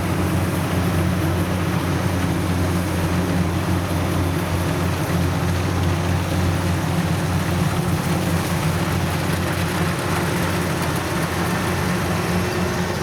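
Kubota combine harvester's diesel engine running steadily with a constant low drone and broad mechanical noise.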